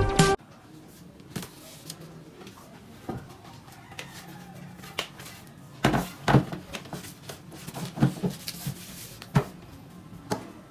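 Intro music cuts off abruptly just after the start. Then come scattered knocks and thumps of rough wooden planks being handled and set down on a cloth-covered work table, loudest about six seconds in.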